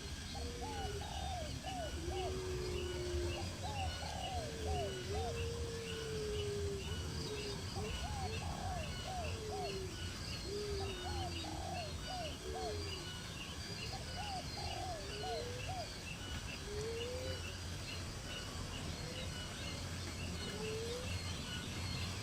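Birds calling: clusters of three to five short, low curved notes alternate with slow gliding whistles, repeated throughout, over a steady low rumble. A faint, regular ticking runs higher up.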